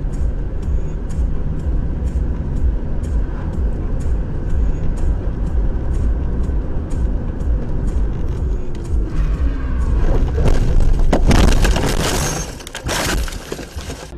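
Car cabin audio from a dashcam: steady road and engine rumble with light regular ticking about three times a second. About ten seconds in, a loud crashing and scraping noise as the car leaves the wet road into the roadside grass and brush, dying away over the last couple of seconds.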